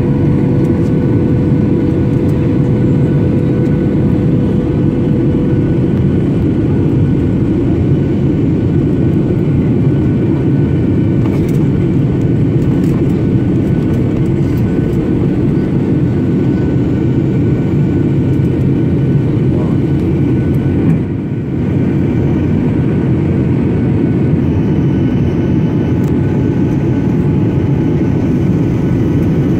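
Cabin noise inside a Boeing 737-800 in flight: the steady rush of airflow and drone of the CFM56 jet engines, with a few faint steady tones above it. The noise dips briefly about two-thirds of the way through.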